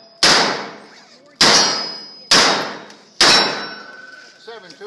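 Four shots from a Smith & Wesson 686 revolver firing factory .38 Special rounds, about a second apart. Each shot is followed by the ringing clang of a steel plate target being hit, dying away over about a second.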